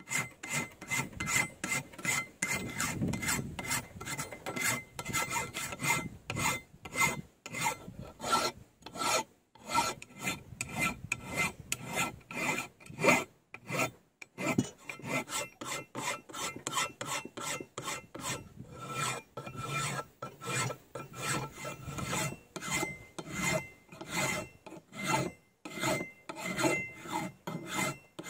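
A 12-inch flat metal hand file being drawn across the steel head of an old railroad rail, making repeated rasping strokes at about two a second, with a faint steady ring from the steel, as the rail is shaped into an anvil face.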